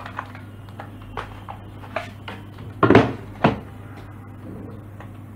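Plastic gaming keyboard being handled and set down on its cardboard box: a few light taps and clicks, then two louder knocks about three seconds in, half a second apart.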